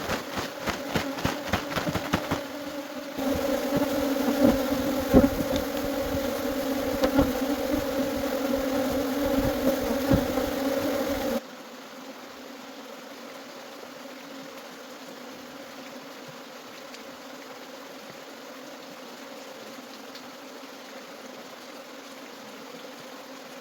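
A mass of honeybees buzzing, a loud steady drone, with a quick run of clicks or knocks in the first few seconds. About halfway through it drops suddenly to a much fainter steady hum.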